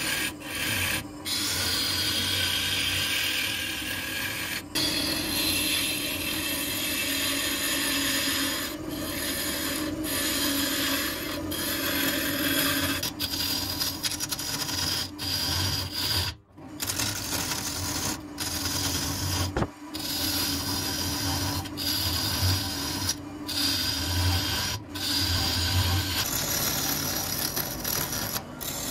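Gouge cutting a spinning apple-wood blank on a wood lathe: a continuous rough scraping hiss of shavings being peeled off, broken by short gaps every second or few as the tool lifts between passes, over the steady hum of the running lathe.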